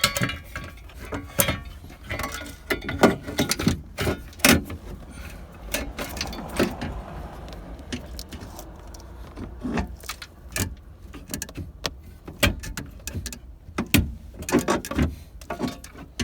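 Plastic interior trim panel being fitted back into a car, handled and pushed into place: irregular clicks, knocks and rattles, some loud and sharp, spread throughout.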